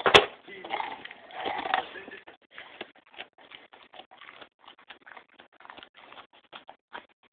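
Dog gnawing and crunching into a raw pumpkin's rind: a sharp knock near the start and heavier scraping bites for the first two seconds, then a run of short, irregular crunches.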